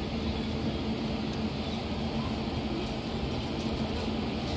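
Kosi Express passenger train rolling slowly out of the station: a steady rumble from the coaches on the track, with a low steady hum running under it.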